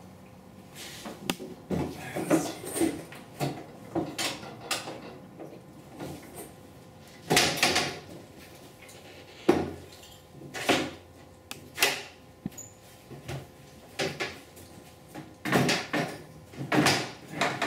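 A Side Track folding metal saw table being handled and set up on sawhorses: scattered knocks, clunks and rattles of its metal frame and rails, with the loudest clatter about halfway through and again near the end.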